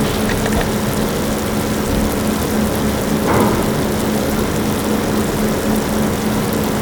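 Chemical paint stripper fizzing on the aluminium engine cowls of a Cessna 210, a dense, steady crackling hiss as the paint lifts and peels, with a steady low hum underneath.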